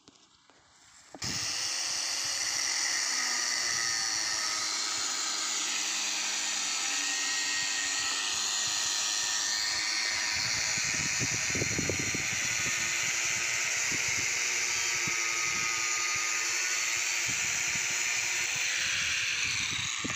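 Handheld electric angle grinder switched on and running with a steady high whine while cutting steel fencing rods. Its pitch dips and recovers for a few seconds partway through as the disc bites. Low knocks come in the second half.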